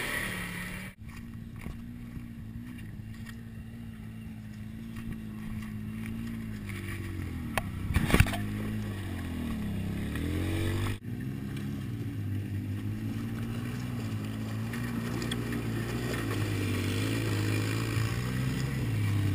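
Polaris RZR XP 900 side-by-side's engine running at low speed while crawling up a rocky hill trail, its pitch dipping and then rising again partway through. A sharp clatter of knocks about eight seconds in is the loudest sound.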